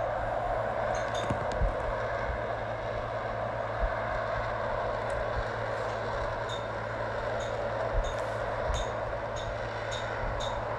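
F-35B in hover, its F135 jet engine and shaft-driven lift fan giving a steady jet roar, with a few faint low thumps.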